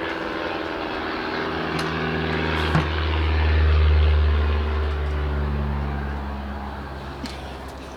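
Low engine drone of a passing vehicle or aircraft that swells to a peak mid-way and then fades, with a single sharp click about three seconds in.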